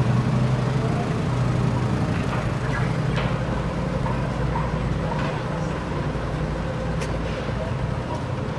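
Street traffic, with a steady low engine hum from a nearby motor vehicle and a few light clicks.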